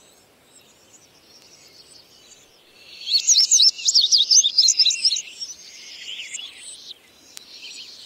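Male indigo bunting singing: a loud phrase of rapid, sweeping high notes about three seconds in, lasting about two seconds and trailing off into quieter notes. Fainter bird song is heard before and after it.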